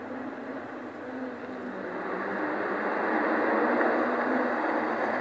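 A steady rushing noise that slowly grows louder, like a whoosh or rumble sound effect.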